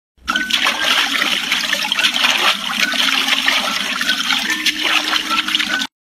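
Rushing, splashing water from a stream or small cascade, loud and steady, with a few faint short high chirps over it; the sound cuts off abruptly at the very end.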